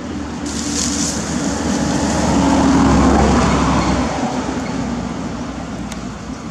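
A motor vehicle passing by, its engine and road noise growing to the loudest point about three seconds in and then fading away.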